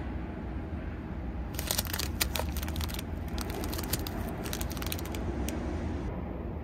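Plastic snack packaging crinkling as it is handled, in two spells of crackles about a second and a half in and again from about three seconds, over a steady low hum.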